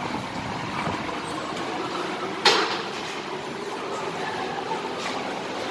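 Steady background noise of a metro station ticket hall, with one sharp bang about halfway through from a fare gate's swinging barrier.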